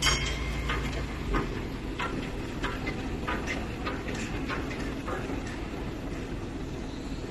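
A boat's engine running under way: a steady low drone with irregular sharp clicks over it, the low drone easing slightly about a second in.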